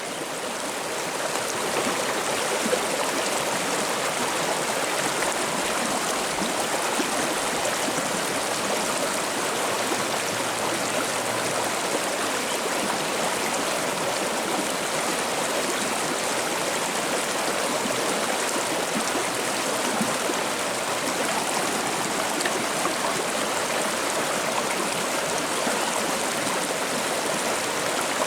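River water babbling and splashing in a steady rush, fading in over the first two seconds.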